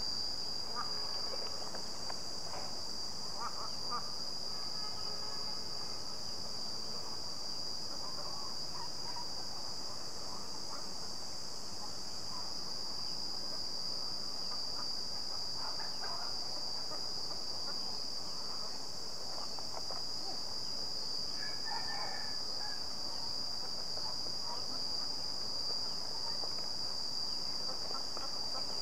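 Insects chirring in one steady, high-pitched, unbroken drone. A couple of faint short calls sound briefly in the background.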